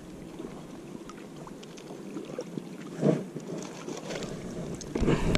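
A wire mesh fish basket being hauled up out of a lake by its rope, with water splashing and dripping off it and the rope rustling through the hands. It grows louder about three seconds in and again near the end.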